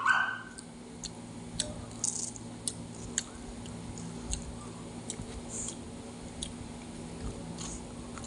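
Close-up eating sounds of fried battered snacks: scattered light clicks and a few crunchy bites, over a steady low hum. A brief louder sound comes right at the start.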